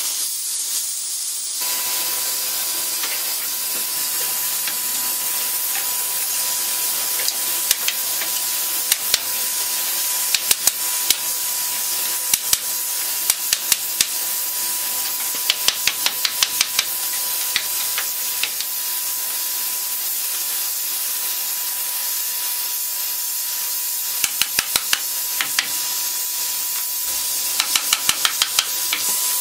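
Steady hiss of steam as a red-hot steel tire, shrunk onto a wooden wheel, is cooled with a water hose. Short runs of quick, sharp clicks come through the hiss. In the first second or two, the hiss of the torch flame heating a tire.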